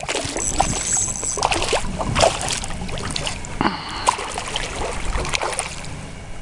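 Hooked smallmouth bass thrashing at the water's surface beside the boat, a run of irregular splashes.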